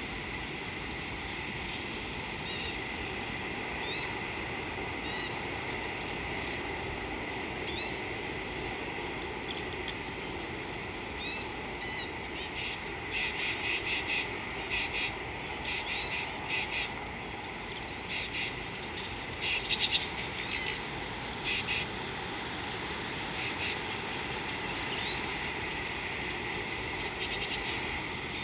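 Bush ambience of insects and birds: a steady high insect drone under a short, high chirp repeating about once a second. Rising whistled calls come now and then, and bursts of fast chattering come twice in the middle.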